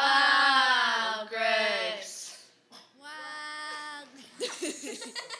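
Children singing a few long, drawn-out notes, then breaking into laughter near the end.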